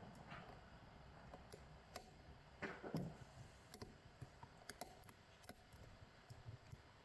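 Faint, scattered clicks and small metallic ticks of a lock pick and tensioner working in a Tostem WN lock, with a brief, louder rub about three seconds in.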